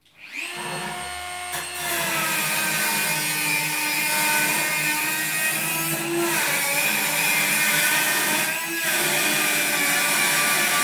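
Dremel rotary tool with an abrasive cutting wheel spinning up to a high whine, then cutting into a metal support bar from about two seconds in: a steady grinding over the whine, easing briefly twice.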